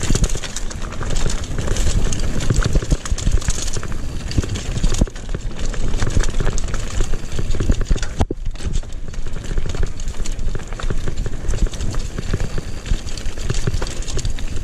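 Mountain bike rattling and clattering at speed over a rough, stony dirt trail: a dense run of knocks from the frame, chain and tyres over a steady low rumble of wind on the action camera's microphone. There is a brief dip about eight seconds in.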